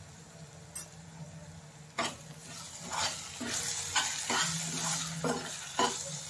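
Steel spatula stirring and scraping a thick onion-tomato masala in a stainless steel pan, clinking against the pan over a soft sizzle as freshly added chilli powder and ground spices fry in. The stirring starts about two seconds in.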